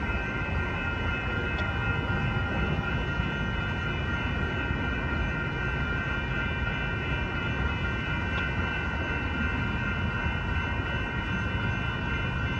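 Light-rail trolley cars rolling over a railroad grade crossing, a steady rumble, with the crossing's warning bells ringing over it.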